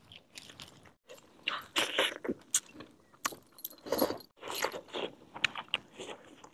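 Irregular clicks, smacks and scrapes of people eating with their hands: cooked mutton pieces being pulled apart on a steel plate and chewed.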